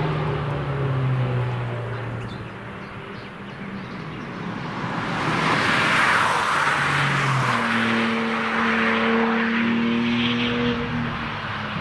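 Cars passing at speed on a racetrack. An engine note falls away as one car drives off, then a BMW M2 sweeps close past about six seconds in, the loudest moment. Near the end another car's engine comes closer at a steady pitch.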